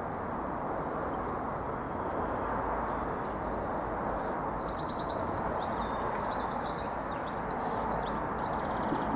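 Small birds chirping in quick bursts over a steady low background rumble. The chirping picks up after about three seconds.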